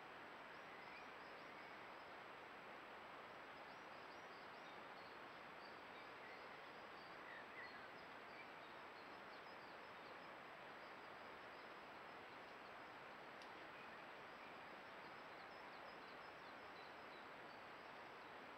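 Near silence: the steady hiss of a trail camera's microphone with a thin high whine, and faint short high chirps scattered throughout.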